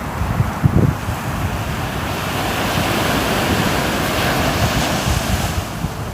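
Sea waves washing in: one wave's hiss swells about two seconds in and dies away near the end. Wind buffets the microphone with low thumps at the start.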